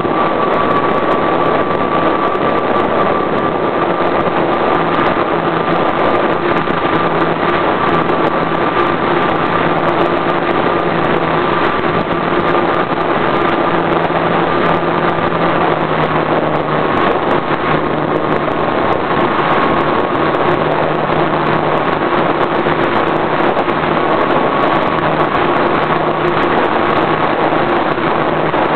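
A model airplane's engine running steadily, heard close up from a camera mounted on the plane, over a steady rush of noise. Its pitch drops slightly about halfway through.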